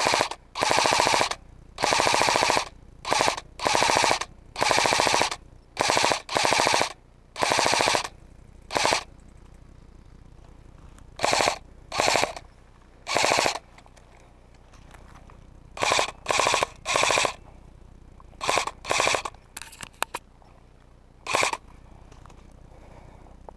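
Airsoft rifle firing short full-auto bursts, each a rapid rattle of shots lasting under a second, in quick succession with a couple of pauses of a second or two. There are a few single shots near the end.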